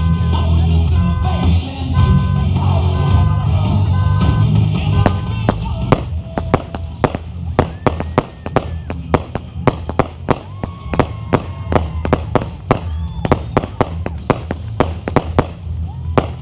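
Music with a heavy bass line, joined about five seconds in by a rapid run of sharp firework bangs and crackles, several a second, that carries on over the music.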